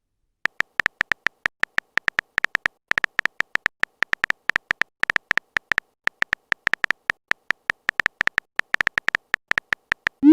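Text-message typing sound effect: a rapid, uneven run of short beep-like ticks, about six a second, as a message is typed out.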